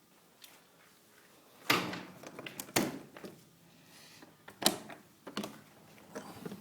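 A door being handled: a few sharp knocks and clatters, with rattles in between.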